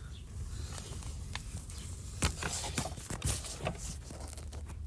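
Scattered light knocks and clicks at uneven intervals over a steady low hum.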